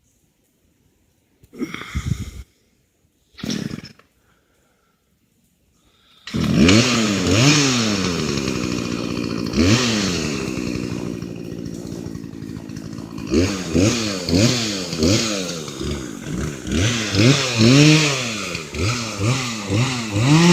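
Chainsaw engine starting up loud about six seconds in and running with its pitch rising and falling as it is revved, the revs coming quickly one after another near the end. Before it, near silence with two brief rustling noises.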